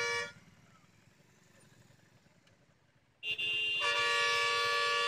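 Vehicle horns sounding: a blast cut off just after the start, then near quiet, then a long steady blast from about three seconds in that is joined by a second horn tone a moment later.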